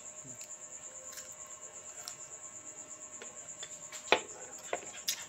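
Steady high-pitched cricket trill, pulsing evenly, under soft crunching clicks of crisp green mango being chewed, with one sharp knock about four seconds in.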